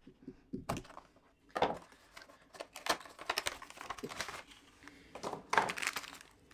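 A cardboard retail box being opened by hand, with its inner plastic tray and a plastic bag handled. The sound is irregular taps, scrapes and rustles of cardboard and plastic packaging.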